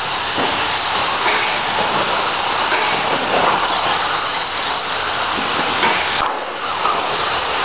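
Electric TLR 22 1/10-scale RC buggies racing: a steady, hissing whir of motors, drivetrains and tyres on the dirt track.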